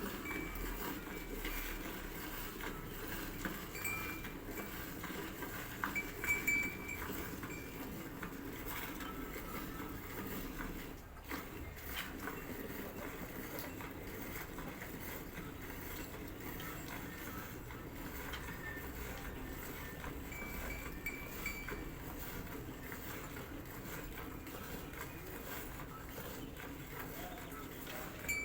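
Livestock in a cattle shed: steady background noise with a few short high calls and scattered small knocks.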